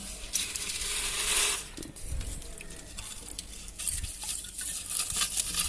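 Hard-water salt scale rattling and scraping in a water heater's metal drum, a gritty rush for about a second near the start, then scattered light clicks and taps near the end. The scale is the mineral build-up from salty bore water that made the heating coil crack.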